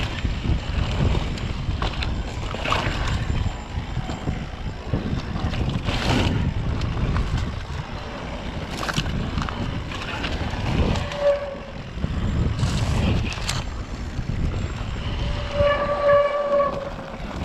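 Electric mountain bike rolling down a dirt singletrack: wind buffeting the microphone, tyres crunching over dirt, dry grass and brush brushing past, and scattered knocks and rattles from the bike. Two short squeals, one about two-thirds in and a longer one near the end.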